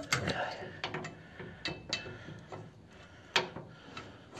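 Irregular metallic clicks and knocks of hand tools working a nut onto an engine mounting stud under the truck's chassis.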